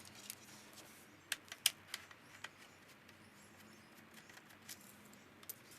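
A few faint, sharp clicks and light taps, scattered and irregular, most of them bunched about a second in and a couple more near the end, over quiet room tone.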